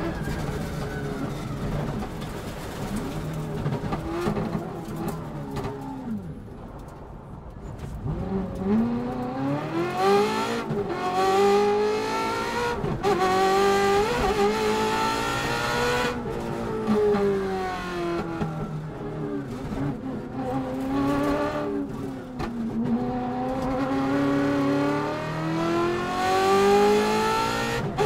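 Ferrari V8 in a Subaru Impreza rally car driven hard, its pitch rising and falling as it revs up and comes off the throttle. It drops away and goes quieter about six to eight seconds in, climbs hard several times, sinks through the middle, and rises again near the end.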